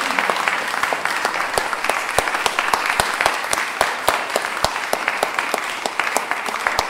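Audience applauding: many hands clapping steadily after a talk.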